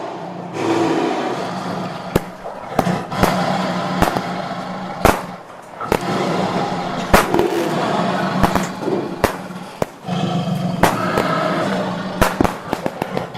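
Fireworks going off: irregular sharp bangs and cracks, several in quick succession near the end, over a continuous rumbling, crackling wash.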